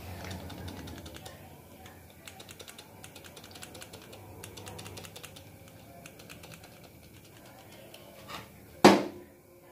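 Rapid clicking of a hand-pumped oil can squirting oil into the cylinder bores of an engine block. A single loud knock comes near the end.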